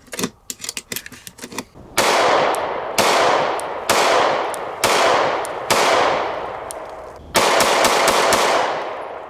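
Cartridges clicking into a pistol magazine through a Lula loader, then a Glock G43X 9mm pistol fired six times, about a shot a second with a longer pause before the last, each shot trailing off in a long echo.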